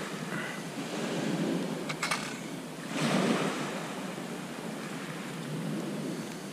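Small sea waves washing onto the shore in a steady rush, swelling louder about three seconds in, with a couple of faint clicks about two seconds in.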